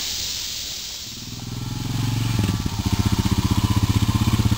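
Motorcycle engine coming in about a second in and growing louder, then running steadily with an even low pulsing beat.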